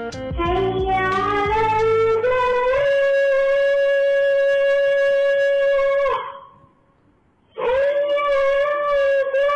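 A young boy's voice calling the azan, the Islamic call to prayer: one long note that rises and then holds high and steady, breaks off about six seconds in, and after a short breath the next phrase begins with a wavering pitch.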